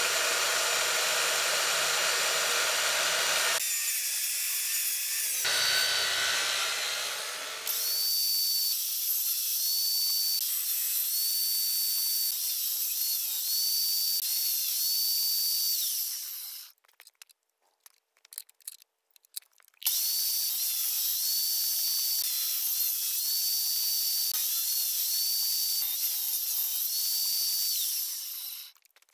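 Circular saw mounted under a table as a makeshift table saw, running and cutting a rebate into pallet wood in several passes. Its high whine dips in pitch again and again as the blade bites. It stops for a few seconds about halfway, starts again, and winds down near the end.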